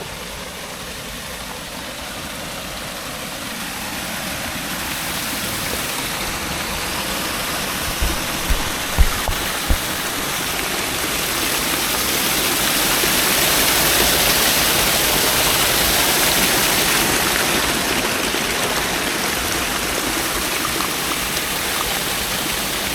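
Small creek waterfall spilling over a limestone ledge: a steady rush of falling water that grows louder toward the middle and then eases off a little. A few dull bumps about eight to ten seconds in.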